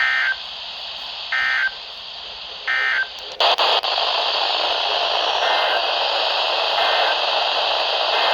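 Emergency Alert System end-of-message data tones: three short, harsh digital bursts about a second and a half apart, marking the end of the warning broadcast. A click follows, then steady radio hiss, with three fainter repeats of the bursts underneath it.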